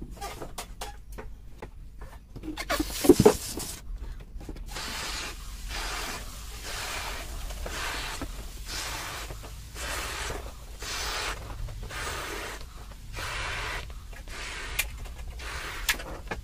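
A latex balloon being blown up by mouth: a steady series of breathy puffs into the balloon, about one a second, with rubbery handling sounds before the blowing starts.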